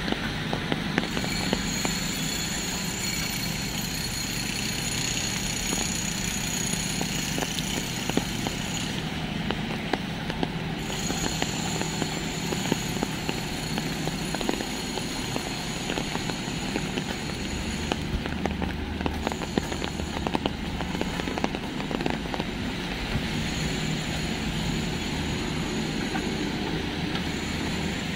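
Outdoor city street ambience: a steady wash of traffic noise with a low rumble, and many small scattered ticks over it.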